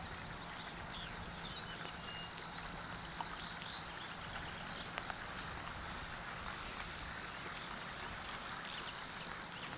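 Quiet lakeside ambience: a steady soft hiss with faint bird chirps in the first few seconds and a couple of small clicks.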